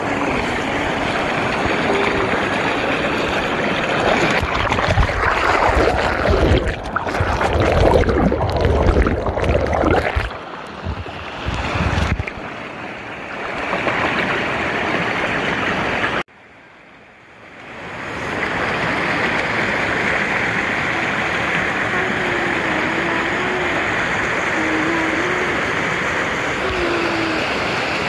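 Stream water rushing and splashing over rocks, heard up close as a steady rushing noise. A strong low rumble is mixed in from about 4 to 10 seconds in, and the sound drops away suddenly for a moment about 16 seconds in before coming back.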